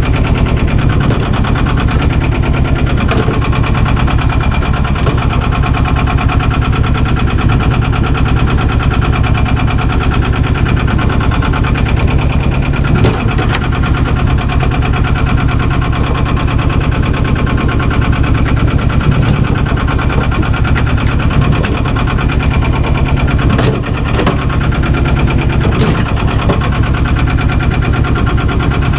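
Albin 2D inboard boat engine running steadily under way, with a rapid, even putter.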